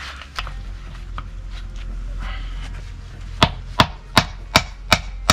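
A short log used as a wooden mallet knocking on a hardwood stick to drive a hand auger bit out of it: quiet scraping of wood and metal at first, then sharp, evenly spaced knocks from about three and a half seconds in, two or three a second.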